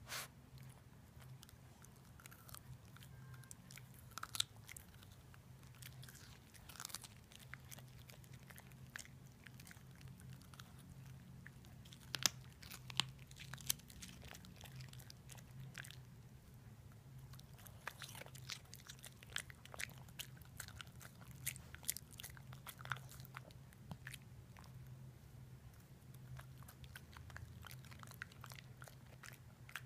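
Dog chewing and crunching a baby carrot: irregular sharp crunches throughout, the loudest cluster near the middle, over a faint low steady hum.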